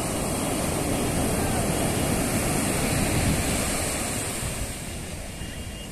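Bay of Bengal surf breaking and washing up the sand: a steady rush that swells to its loudest about three seconds in, then eases.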